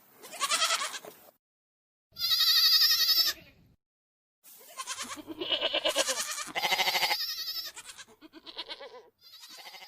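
Goats bleating: about five wavering, quavering calls in a row with short silent gaps between them, several running together in the middle.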